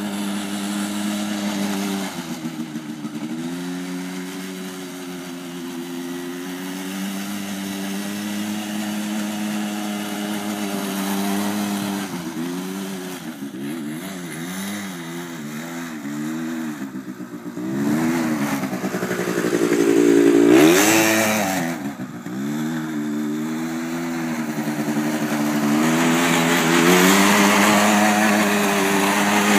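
Engine of a 100cc Quadzilla quad bike running as it is ridden across grass, its pitch rising and falling over and over as the throttle is opened and eased off. It is loudest about two-thirds of the way through and again near the end, as it passes close.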